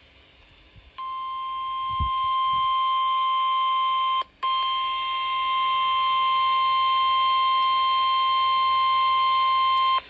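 NOAA Weather Radio warning alarm tone, the steady 1050 Hz tone that comes before a warning message, played through a Midland weather radio's speaker. It starts about a second in, cuts out for a moment just after four seconds, then continues steadily; a low thump sounds about two seconds in.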